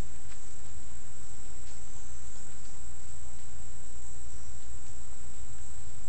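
Insects chirring steadily at a high pitch, over a low rumble and a few faint clicks.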